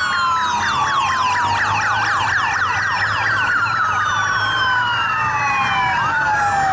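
Several police sirens from a motorcycle escort sounding at once: a fast yelp of quick repeated sweeps overlapping slower wails that fall and rise over several seconds.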